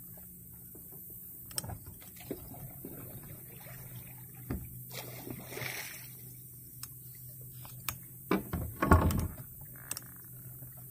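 Knocks and clicks of gear being handled in a small fishing boat, over a low steady hum, with a louder rattling, rustling clatter about eight to nine seconds in.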